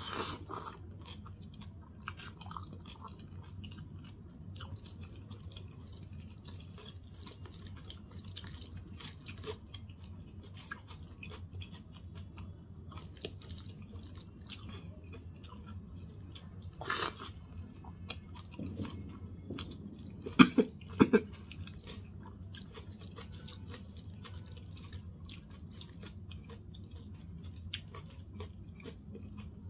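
Close-up chewing and wet mouth sounds of someone eating rice and daal, with many small clicks and smacks and a few louder, sharper clicks about two-thirds of the way through. A steady low hum runs underneath.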